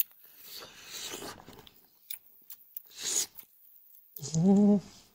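Close-miked eating: wet chewing and tearing bites of meat with a few small clicks, then a short hummed "mm" from the eater about four seconds in.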